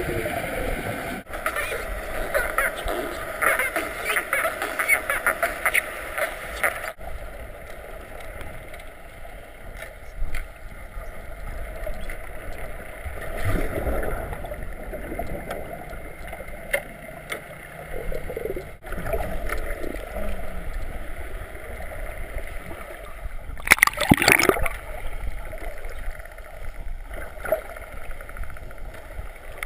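Water rushing and splashing around a moving boat, with indistinct voices, in several spliced stretches. A single louder splash comes about four-fifths of the way through.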